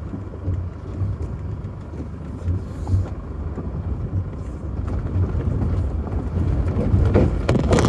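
Low, steady rumble of a vehicle heard from inside its cabin as it moves slowly over a rough dirt track, with a few sharp knocks and rattles about seven seconds in.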